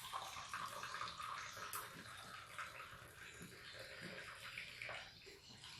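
Hot ginger, lemongrass and palm sugar decoction poured from a pot into a glass, a faint, uneven trickling and splashing.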